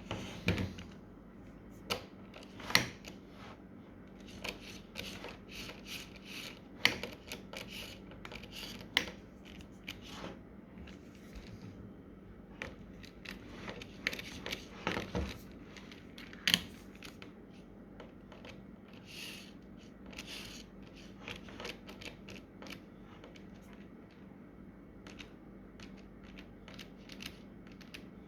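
Irregular clicks, taps and small rattles from a small handheld electric screwdriver and its parts being handled, over a faint steady hum.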